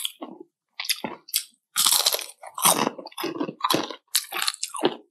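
Crispy fried chicken skin bitten and chewed close to the microphone: a few small crunches, then a dense run of loud, irregular crunches from about two seconds in.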